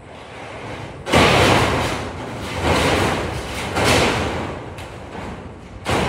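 Corrugated metal roofing sheets booming and rattling as they are handled and laid on a steel roof frame. There are four loud swells, the first about a second in and the rest roughly every second and a half, each starting sharply and dying away slowly.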